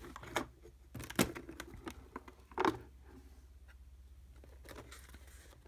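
Stiff card postcards being handled and turned over: a few light taps and rustles in the first three seconds, then quiet with a faint low hum underneath.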